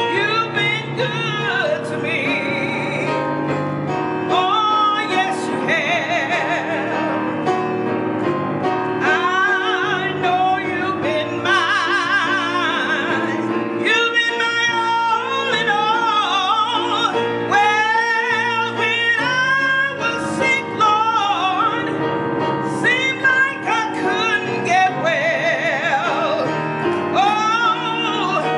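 Electronic keyboard playing slow church music: held chords under a melody with a strong vibrato.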